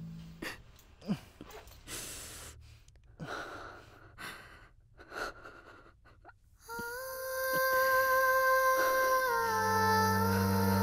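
A person's faint breathing and gasps, with small rustles and clicks as clothing and a belt are fastened. About seven seconds in, background music enters: a steady held chord that steps down in pitch, with a low bass note coming in near the end.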